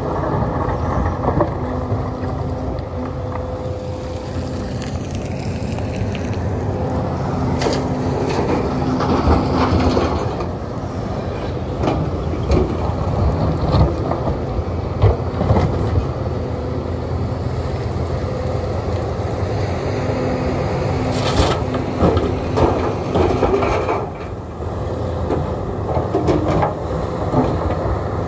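Sumitomo SH300 excavator's diesel engine running steadily at work, with irregular knocks and clatter of stones scattered through it as rocky material is dug and loaded.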